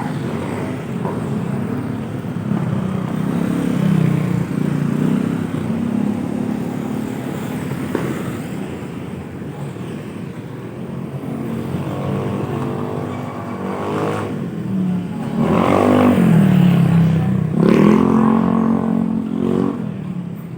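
Street traffic: motor-vehicle engines running throughout, with a vehicle passing close in the second half, its engine pitch rising and falling as it goes by.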